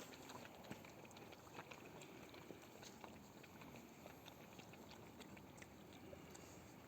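Young street animals eating, with faint, irregular crunching clicks of chewing.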